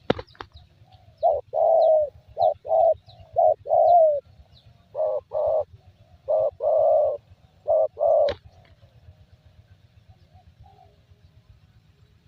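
Spotted dove (tekukur) cooing: several phrases of short low coos, each ending in a longer drawn-out note, over about seven seconds. There is a sharp click at the start and another near the end of the cooing, with faint high chirps in the background.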